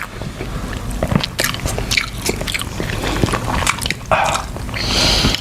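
Close-up eating sounds: chewing and wet mouth clicks and smacks from someone eating crab balls in sauce, with a short rushing noise about four seconds in.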